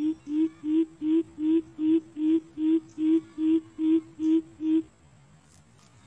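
Greater coucal calling: a run of about a dozen deep, hollow 'boop' notes on one pitch, almost three a second, stopping about five seconds in.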